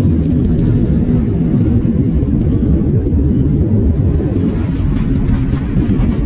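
Yamaha Sniper 150's single-cylinder four-stroke engine running flat out in fifth gear at about 110 km/h, buried in a loud, steady low rush of wind on the handlebar camera's microphone.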